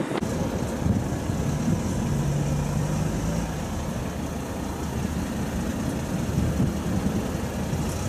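Fire truck engine idling steadily, a low continuous engine sound.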